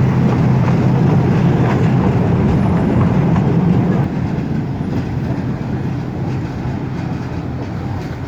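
Kids' toy train on a 2-foot-gauge park track, running with a steady low engine hum and rolling rumble. It drops in loudness about four seconds in and keeps fading as it moves off.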